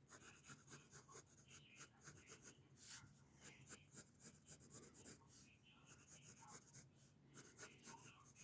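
Pencil scratching on paper in many quick, short sketching strokes, faint.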